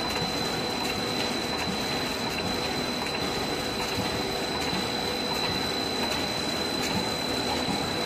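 Horizontal flow-wrap packing machine running steadily as it wraps clay bars in film. There is a constant high whine, a few faint clicks, and a steady mechanical hum.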